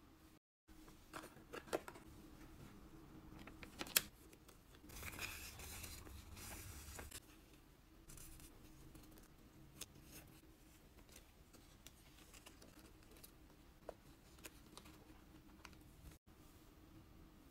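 A strip of printed paper being folded and creased by hand: scattered crisp creasing clicks and soft crinkles, with a longer stretch of rustling about five seconds in. A faint steady hum lies under it.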